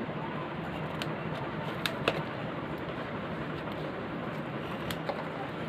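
The seal on a product box being cut open: a few sharp clicks and snips, two close together about two seconds in, over a steady background hiss.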